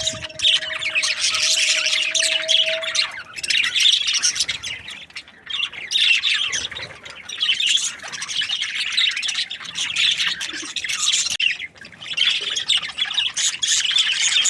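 A group of budgerigars chattering: continuous, overlapping warbles, chirps and squawks with only brief lulls. A faint steady tone sounds underneath for the first three seconds.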